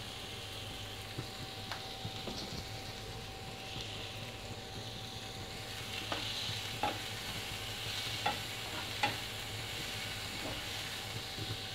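Chopped onion, green chilli and ginger sizzling gently in hot oil in a frying pan while being stirred with a steel spoon, which clicks against the pan a few times in the second half.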